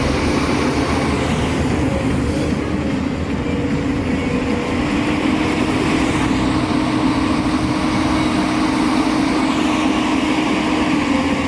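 JCB 3DX backhoe loader's diesel engine running steadily under working load, with a steady hum over a low rumble.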